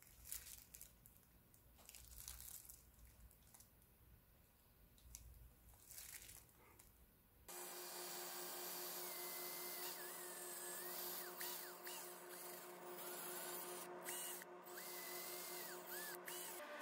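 Faint rustling and light handling clicks for the first seven seconds or so, then a power drill spins a foam polishing pad against the wooden goblet on the lathe: a steady motor hum with a rushing rub and short high squeaks over it.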